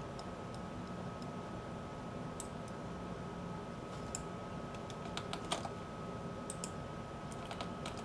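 Computer keyboard keystrokes, scattered and a few at a time, coming more often in the second half, as code is entered. A faint steady hum with a thin high tone runs underneath.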